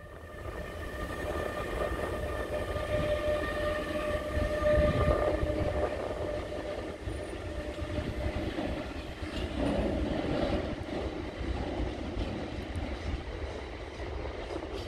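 Freight train passing on a further track: continuous rumble and rattle of wagon wheels on the rails, loudest about five seconds in, with a steady whine over the first few seconds.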